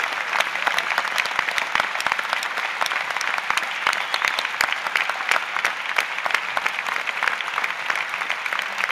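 Crowd applauding, dense and steady clapping from many hands without a break.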